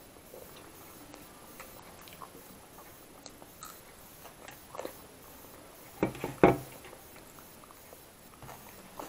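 Close-up chewing with soft mouth clicks, then a few loud crunches about six seconds in: a bite of raw onion being crunched.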